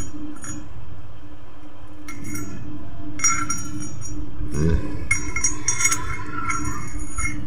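Metal clinking and ringing as a needle roller bearing is worked by hand into the boss of a Honda scooter's rear CVT driven pulley, the steel pulley sheave ringing at each contact. The clinks come in several spells, the longest in the second half.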